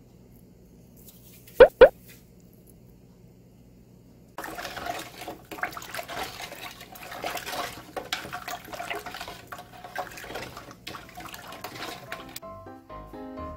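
A hand stirs and sloshes salted, herb-seasoned brine water with lemon halves in a large stainless steel stockpot. The splashing starts about four seconds in. Two quick blips come a second or so before it, and background music comes in near the end.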